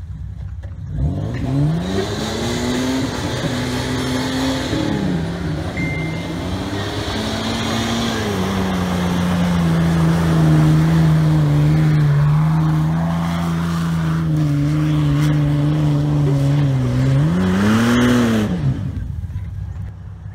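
Toyota LandCruiser 80 series' straight-six petrol engine revving up about a second in and pulling at fairly steady revs under load through mud and up a dirt bank. The revs rise sharply once more near the end, then die away.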